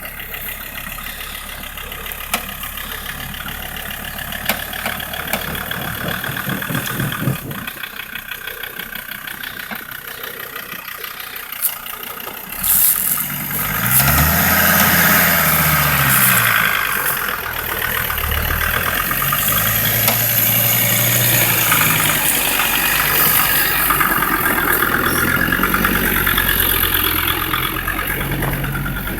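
Land Rover Defender 130's engine running at low revs, with a few sharp knocks. About halfway through it gets louder and the engine revs rise and fall as it pulls over rough ground.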